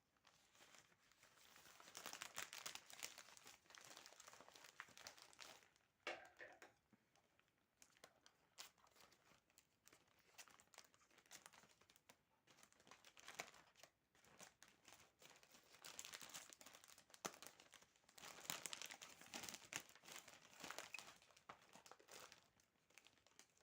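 Faint crinkling and rustling of packaging being handled by hand as a mailed parcel is opened, with a few short tearing sounds, coming in several stretches of a few seconds each.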